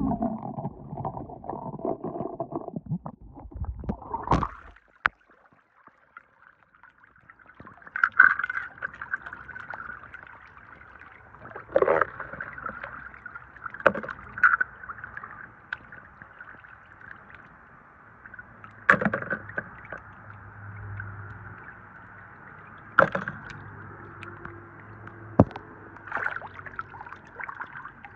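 Handling noise of small die-cast toy cars on a tiled floor for the first few seconds. Then, after a short gap, water runs and splashes steadily in a plastic basin as the toy cars are rinsed, with a sharp knock every few seconds as a car hits the basin.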